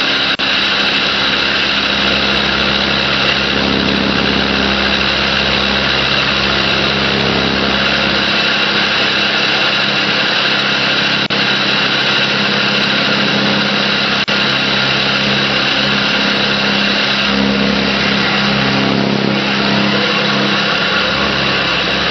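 Ultrasonic drilling machine running steadily, its vibrating horn and tool boring into a glass block through abrasive slurry. A continuous loud hum carries steady high-pitched tones above it.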